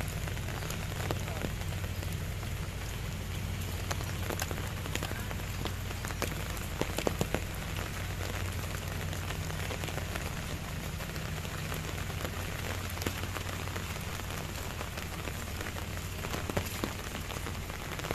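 Light rain falling steadily on wet paving and foliage, an even hiss with scattered sharp taps, over a low steady hum.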